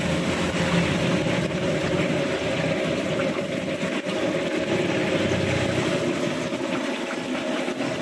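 Sweet potato fritters (timus) deep-frying in a large wok of oil at medium heat, the oil bubbling and sizzling steadily over a low rumble.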